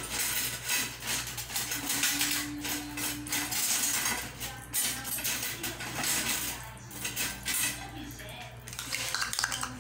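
Clarified butter sizzling and crackling in a hot non-stick frying pan, a dense run of small pops.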